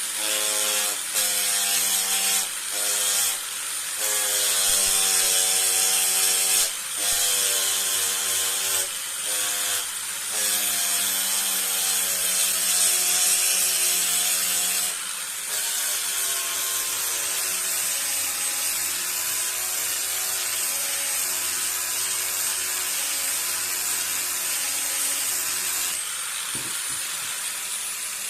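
Electric power tool working wood, its motor whine sagging and recovering in pitch as it bites, with the cut briefly interrupted several times.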